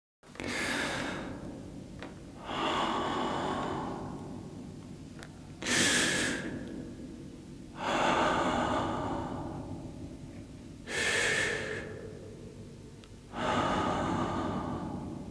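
A person breathing heavily: six loud breaths or gasps, two to three seconds apart, each starting sharply and trailing off slowly.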